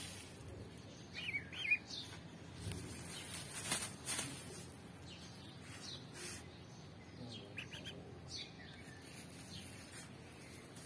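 Duckling peeping in short chirps now and then, with a few brief rustles.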